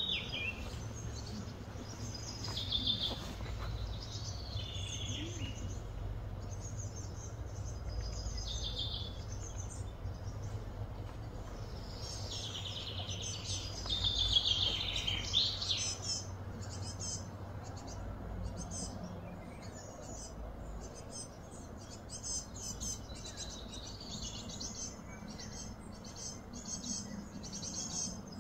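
Outdoor ambience: birds chirping and calling again and again, most busily about halfway through, over a low steady rumble.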